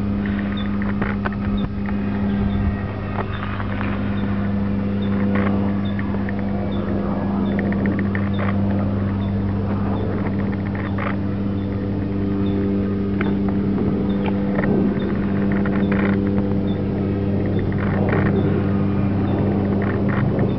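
Model airplane's motor droning at a steady pitch in flight, with scattered light clicks.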